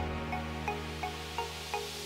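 Background music: sustained low chords with a light plucked note repeating about three times a second.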